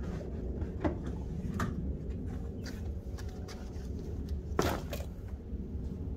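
A soft tool bag of detailing supplies is lifted out of a pickup's back seat and set down on a concrete driveway: light clicks and knocks of handling, then a single louder thud about two-thirds of the way through as the bag lands, over a steady low rumble.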